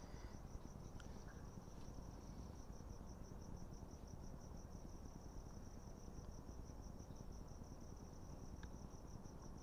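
Crickets chirping in a steady, fast, even pulse.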